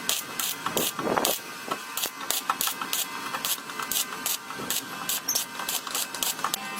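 Hand-tool work: an irregular series of short, sharp scraping strokes, several a second.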